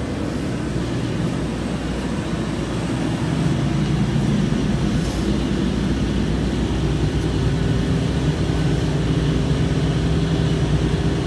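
KiHa 40-series diesel railcar heard from inside the passenger cabin: the diesel engine's rumble with running noise, growing louder about three and a half seconds in, with a steady low engine hum coming up around seven seconds in.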